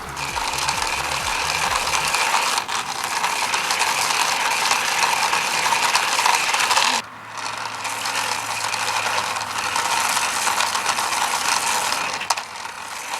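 Thunder Tumbler remote-control toy car driving, its small electric motors and gears whirring and rattling. The sound cuts out briefly about seven seconds in and dips again near the end.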